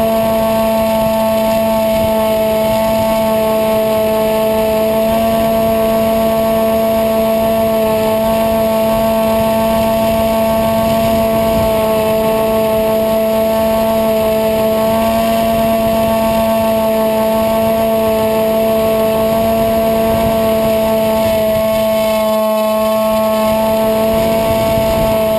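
EasyStar RC foam plane's electric motor and propeller whining at a steady pitch, heard close up from a camera mounted on the airframe, with wind noise rushing over the microphone. The low rumble drops away briefly near the end.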